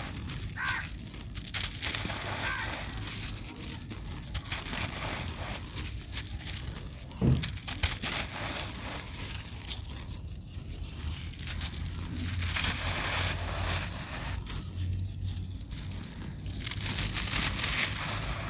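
Gritty cement bowl shapes being crumbled, giving a dense run of crackling, gritty crunches with a couple of louder cracks about seven to eight seconds in.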